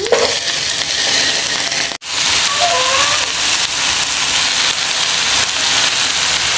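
Chopped spinach sizzling loudly in hot oil in a frying pan as it is tipped in and stirred with a wooden spoon; the hiss breaks off for a moment about two seconds in.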